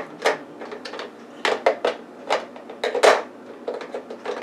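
Plastic parts of a single-serve coffee maker knocking and clicking as a removable piece is worked back into place: a string of sharp knocks, the loudest about three seconds in.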